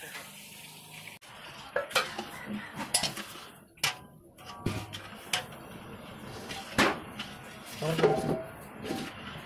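Long-handled metal ladle stirring sugar and water in a metal wok, scraping and clinking against the pan at irregular intervals as the sugar dissolves into syrup.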